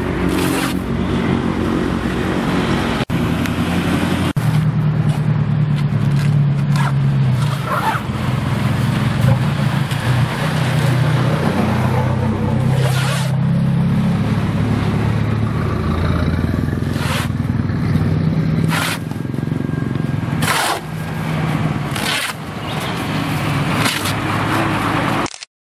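Motor vehicle engines running close by, with traffic passing on the road. Over them come short, sharp rips and scrapes every few seconds as campaign banners are torn off a pickup truck's sign frame.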